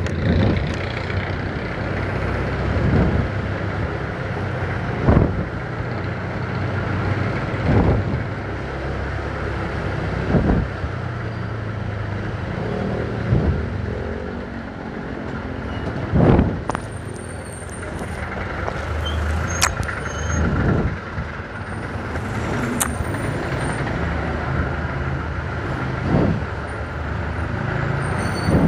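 Motorcycle riding slowly, its engine and road noise running steadily, with a short thump every few seconds.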